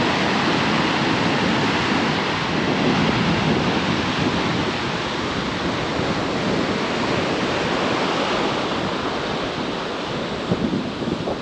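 Small ocean waves breaking and washing up on a sandy beach: a steady rush of surf.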